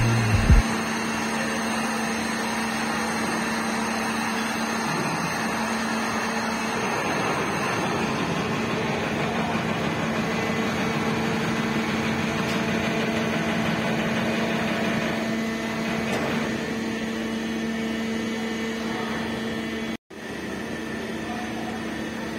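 Sandvik Tamrock tunnel drilling jumbo running steadily while drilling a hole for an SN rock bolt: a continuous mechanical drone with a steady hum. It cuts out for a split second near the end.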